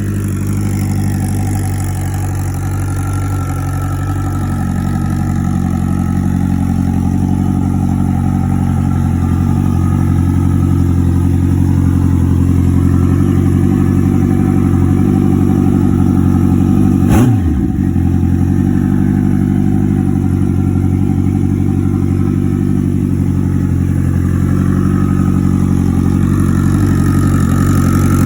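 Turbocharged Suzuki GSX1400's inline-four engine idling steadily, with one brief dip and recovery in the engine note about two-thirds of the way through.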